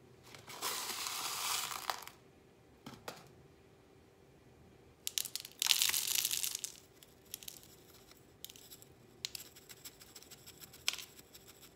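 Crushed shell top dressing poured from a small hand scoop, rattling and sliding over the potting mix and spilling onto cardboard. Two rushes of it come about a second in and about five seconds in, with a few small clicks of pieces dropping between them.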